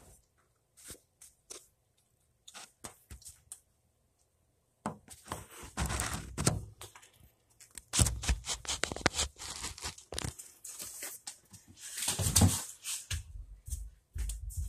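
Handling noise close to the microphone: a few scattered clicks and knocks at first, then from about five seconds in, irregular rubbing and scraping bursts with occasional thunks.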